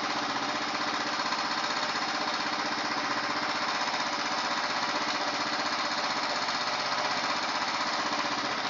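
Royal Enfield air-cooled single-cylinder four-stroke engine running steadily at a raised idle, its carburetor just adjusted to the correct air-fuel mixture.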